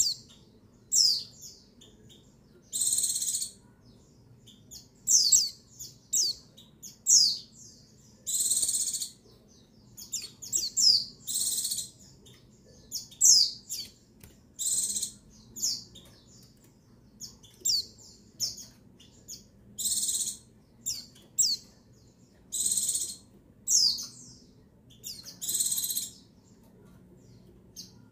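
A female white-eye (pleci buxtoni) calling again and again: short, high calls about once a second, some harsh and buzzy, others thin, quick sweeping notes. These are female calls of the kind played to rouse male white-eyes into song.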